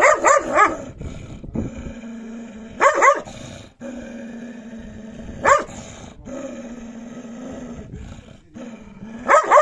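A dog growling steadily at its own reflection in a mirror, broken by barks: a quick run at the start, single barks about three and five and a half seconds in, and a few more near the end. It is a threat display at what the dog takes for another dog.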